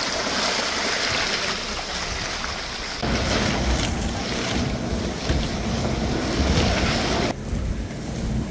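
Wind buffeting the microphone from a moving Toyota pickup truck, a loud steady rush. About three seconds in, a heavier low rumble from the truck joins it, and near the end the rushing drops away sharply.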